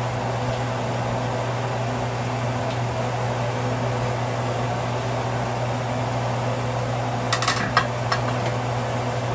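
A steady low hum, like a kitchen fan, runs throughout. Near the end come a few quick metallic clinks as the metal lid is lifted off the cast-iron skillet and set down.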